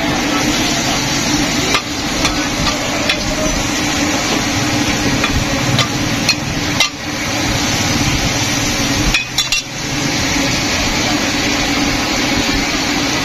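Sliced onions sizzling steadily in ghee on a large flat tawa griddle, over a steady low hum, with a flat metal scraper scraping the hot griddle and clicking against it a few times.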